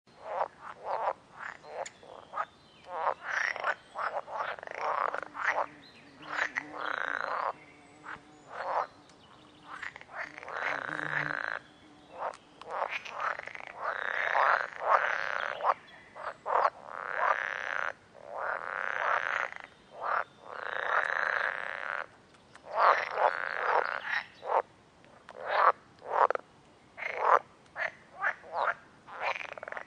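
Frogs croaking in a chorus, a mix of quick short croaks and longer calls about a second long, following one another with hardly a pause.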